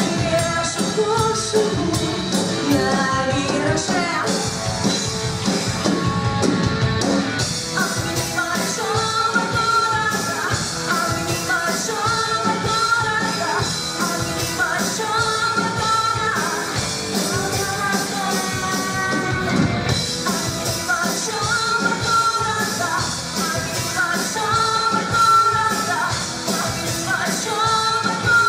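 Live rock band playing a rock'n'roll song, with drums, guitars and bass under a singing voice.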